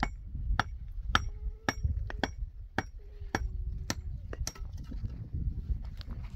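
Broken concrete cinder blocks knocking and clinking against one another as they are lifted and shifted in a rubble pile. About a dozen sharp, irregular knocks, some ringing briefly, over a low steady rumble.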